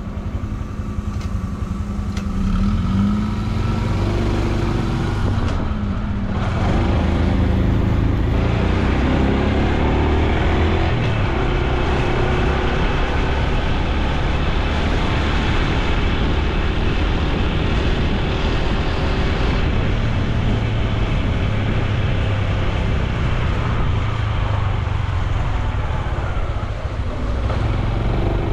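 Honda Super Cub C125's 125 cc single-cylinder four-stroke engine picking up speed, its pitch rising in steps during the first ten seconds, then running steadily at speed with road and wind noise.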